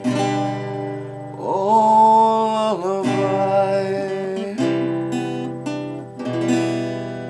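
Acoustic guitar strumming several chords, with a sung note that slides up about a second and a half in and holds for about a second and a half. The last chord near the end rings out and fades.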